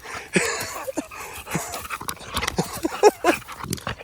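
American Bully dogs playing, giving a quick run of short excited yelps and grunts, the loudest about three seconds in.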